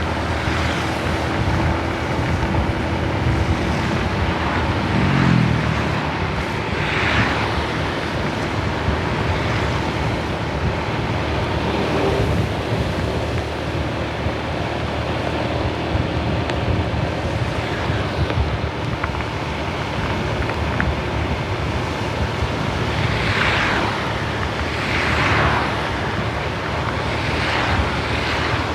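Road traffic on a rain-wet road: a steady rumble of engines and tyre hiss, with one engine note that holds and then falls away about five seconds in, and several louder swells of tyre spray as vehicles pass near the end.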